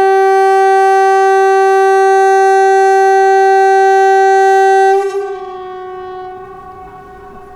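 Kockums Supertyfon pneumatic air horn sounding the Swedish outdoor warning signal (Hesa Fredrik) in a test: one loud, steady 380 Hz blast that cuts off sharply about five seconds in. A much fainter tone lingers after it and fades.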